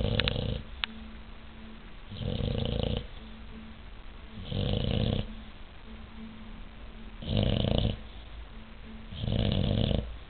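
English bulldog puppy snoring in its sleep: five loud snores, each under a second long, about every two seconds.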